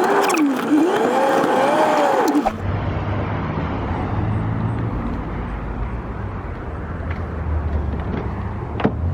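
For the first two and a half seconds a single wavering tone rises and falls. Then there is a sudden change to a car's engine and running noise: a steady low rumble.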